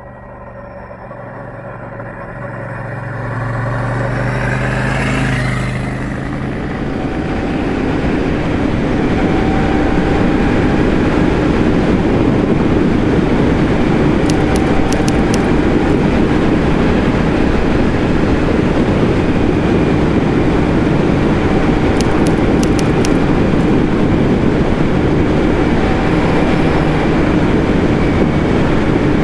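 Royal Enfield Shotgun 650's parallel-twin engine picking up speed, rising in pitch over the first few seconds. It then settles into a steady roar of wind and road noise at cruising speed, with the engine underneath.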